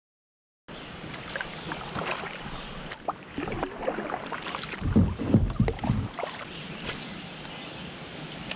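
Dead silence for a moment, then a kayak being paddled: blade strokes splashing and dripping in the water, with small clicks and knocks, loudest about five seconds in.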